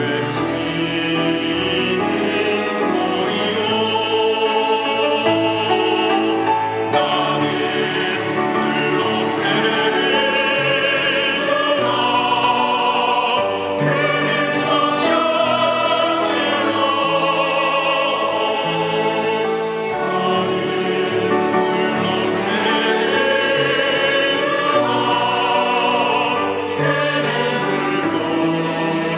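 Mixed church choir singing a Korean anthem in full voice with instrumental accompaniment, the words "나는 물로 세례를 주나 그는 성령으로" (I baptize with water, but he with the Holy Spirit).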